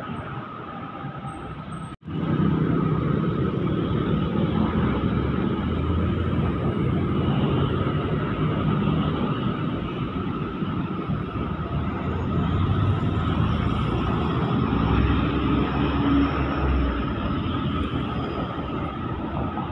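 Roadside traffic: heavy diesel trucks and motorcycles passing close by, engines running and tyres on the road, louder low rumble as the big trucks go past. The sound drops out briefly about two seconds in.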